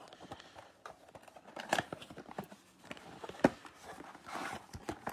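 Cardboard trading-card box being handled and its flap pulled open: irregular paper-and-cardboard rustling and tearing with a few sharp clicks.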